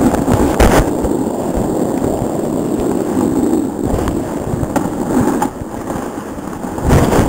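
Snowboard sliding and scraping over packed snow, a rough steady rumble picked up by a helmet-mounted camera, with a short sharp knock about a second in and a louder scraping stretch near the end.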